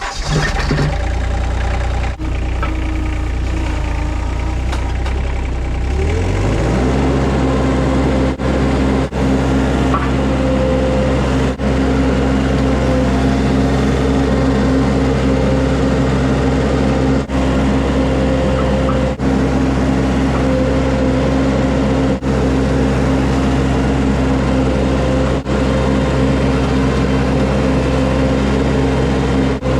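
Tractor engine running, throttled up about six seconds in and then holding steady at the higher speed while pallet forks on the tractor lift the chicken coop.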